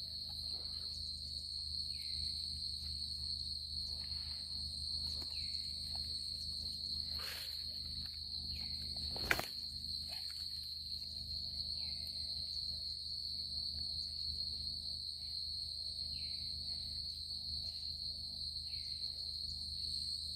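Insects, crickets by the sound, trilling steadily on one high note. Short falling calls come every few seconds, and there is a single sharp click about nine seconds in.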